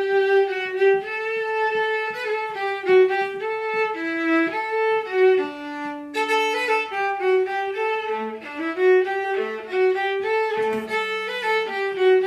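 A viola playing a melody in separate bowed notes, one after another, with one longer low note about halfway through and the lowest notes of the phrase near the end.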